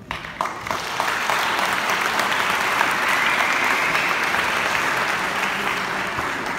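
Audience applauding: a few scattered claps at first, quickly filling out into steady applause that eases slightly near the end.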